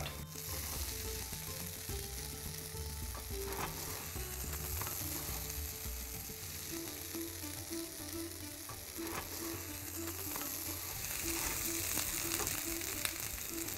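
Paneer bhurji sizzling steadily in a hot frying pan on a gas burner as it is spooned out, with a few light knocks of the wooden spoon against the pan.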